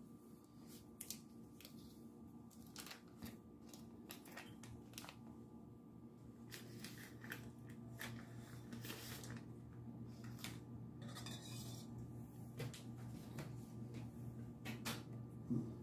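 Faint scattered clicks, taps and scrapes of kitchen utensils against dishes and a mixing bowl as butter is put in. A low steady hum comes in about four seconds in.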